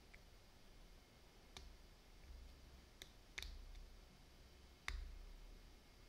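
A handful of faint, sharp metallic clicks at irregular intervals as a thin hook pick works the pin tumblers of a four-pin padlock during single-pin picking; the loudest click comes about five seconds in.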